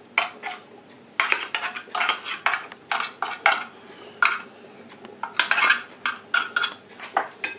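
Metal fork scraping canned tuna out of an open tin, clicking and scraping against the can in quick, irregular strokes.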